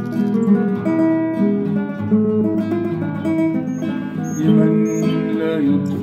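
Acoustic guitar playing a tune, with plucked notes changing every fraction of a second.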